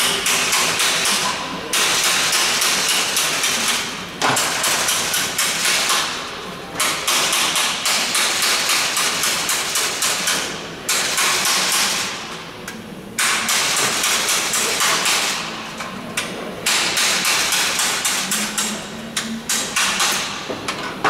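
Pneumatic rivet gun hammering rivets into aluminium airframe formers, a fast rattle of blows in repeated bursts of a second or a few seconds with short breaks between rivets.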